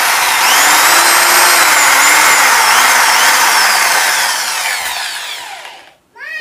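Hand-held electric drill boring into a wooden block with a half-inch twist bit reground off-centre so that it cuts an oversize hole. The drill runs steadily under load for about five seconds, then winds down and stops.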